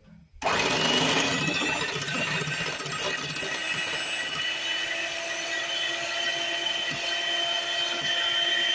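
Electric hand mixer switching on about half a second in and running steadily at high speed, its twin beaters whisking egg whites in a glass bowl.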